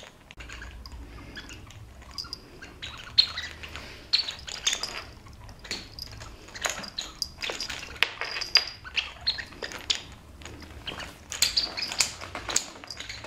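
A cat playing with a dangling toy: irregular taps and scuffs from paws and claws on the wooden floor, with the small metal tag on its collar jingling in short high chimes as it bats and rolls.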